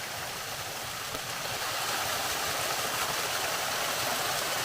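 Small woodland waterfall splashing and rushing steadily, getting a little louder about a second and a half in.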